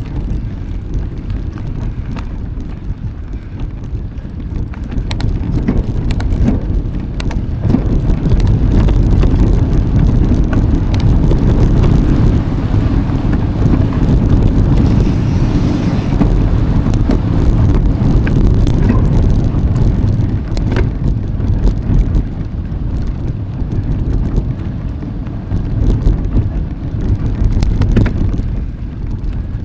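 Mountain bike being ridden, heard through wind noise on the camera's microphone, with frequent short clicks and rattles from the bike. The noise grows louder about a quarter of the way in and eases again after about two-thirds.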